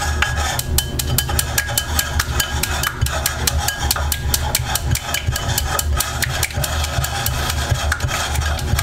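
A chopstick stirring thick glue slime in a white ceramic bowl, knocking against the bowl's side in rapid, irregular clicks.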